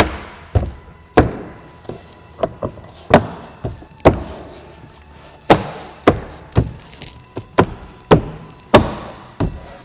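Door trim panel of a Volkswagen GTI being struck with the hand to snap its plastic retaining clips into the door: a series of about fifteen sharp thumps, irregularly spaced.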